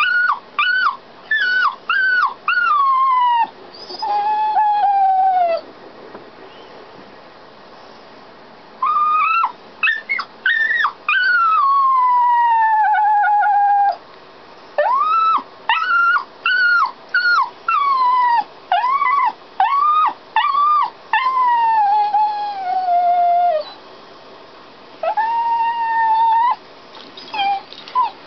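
A dog whining and crying in several runs of short, high-pitched whines that rise and fall, each run ending in a long, drawn-out whine that slides down in pitch, with short pauses between the runs. It is the distress crying of a dog shut inside on its own while its owners are out.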